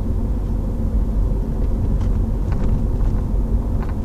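Steady road and engine rumble inside a moving Renault Mégane's cabin, heard from the back seat, with a few faint short creaks and rattles from the rear passenger side. The owner reports a persistent rear creak that the garage has not been able to diagnose.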